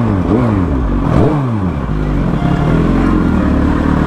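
Suzuki GSX-R1000's inline-four engine revving up and down in three quick blips, then running steadily at low revs as the bike rolls slowly.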